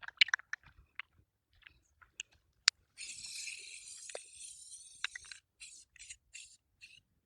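Aerosol spray can of gray primer spraying: a continuous hiss of about two and a half seconds, then a string of short spurts. A few light clicks come in the first second.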